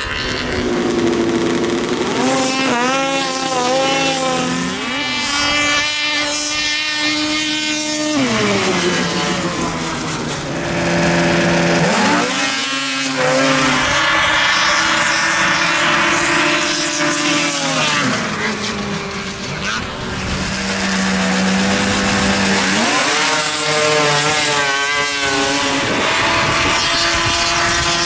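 Racing snowmobile engines at full throttle. Their whine climbs, holds high, then drops away sharply several times as sleds launch and run past.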